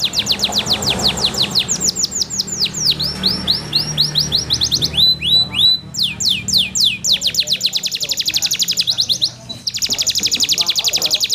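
Domestic canary singing a loud, clear song: trills of rapidly repeated sweeping notes that speed up into very fast rolls in the second half, broken by a brief pause just before the last roll.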